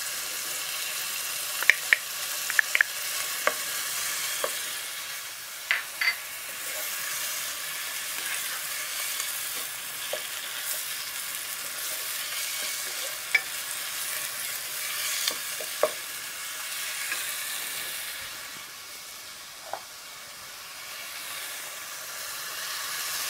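Onion and garlic sizzling in hot vegetable oil in a pot, stirred with a wooden spoon that now and then knocks sharply against the pot. The sizzle eases a little in the last few seconds.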